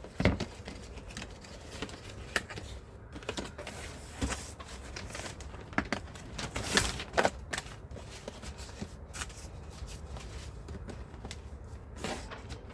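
Handling noise from the hole saw set's packaging being turned over and moved: scattered clicks, knocks and light rustles.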